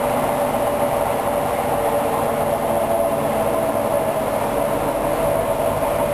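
Hoover DYN 10124 DP washing machine running its spin cycle: a steady drum-and-motor rumble with a constant whine.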